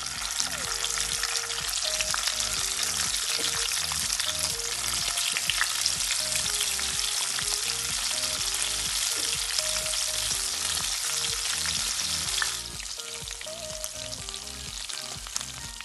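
Marinated quail pieces shallow-frying in hot oil in a pan: a steady sizzle with scattered crackles and spits, dropping noticeably quieter about twelve seconds in.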